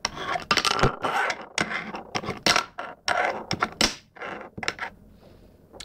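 Brain Juice wooden fingerboard deck being flicked and tapped on a tabletop with the fingers: a quick, uneven run of sharp clicks and short scrapes as the tail pops and the wheels land and roll, thinning out near the end.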